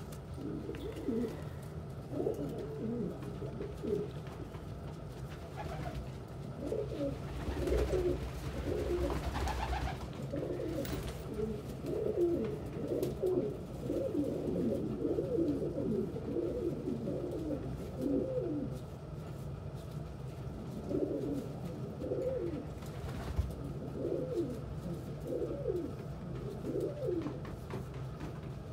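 Domestic pigeons cooing over and over, the rolling coos of a strutting male's bow-coo courtship display among them. A brief rustle about eight seconds in.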